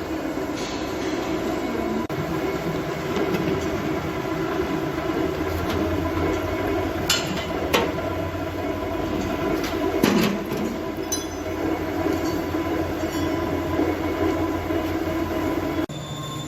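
Steady mechanical drone of train machinery running, with a few sharp metallic clicks and clanks about seven and ten seconds in. The drone changes abruptly near the end.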